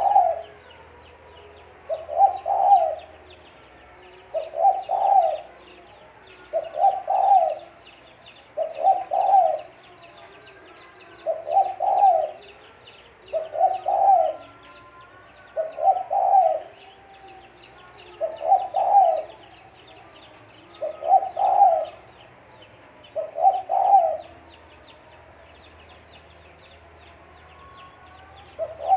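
Spotted dove (tekukur) cooing, repeating its short call phrase about every two seconds, with a longer pause near the end. Faint high chirping of small birds runs behind it.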